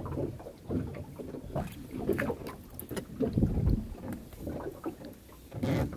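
Small open fishing boat rocking at sea: water slapping the hull and wind on the microphone, with irregular knocks and thumps.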